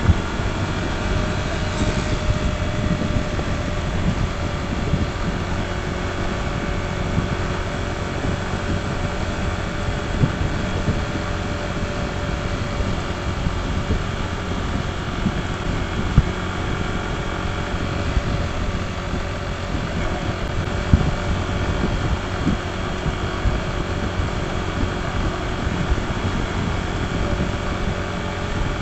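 Honda ADV160 scooter's single-cylinder engine running steadily under way, with wind buffeting the microphone.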